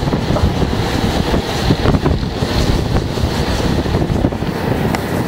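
Heavy wind buffeting the microphone, held out into the slipstream of a moving Amtrak passenger train, over the steady running rumble of the train.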